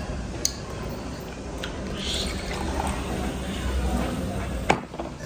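Cola poured from a glass bottle into a drinking glass, fizzing, with a sharp knock near the end.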